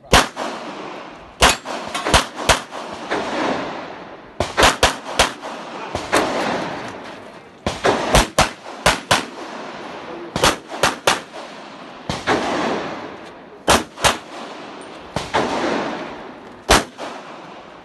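Pistol shots fired in quick runs of two to five, with short pauses between runs. Each run is followed by a long, echoing tail.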